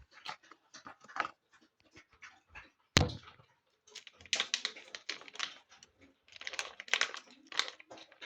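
A dog eating from its bowl: rapid crunching and clicking in short runs, mixed with panting. There is one sharp knock about three seconds in.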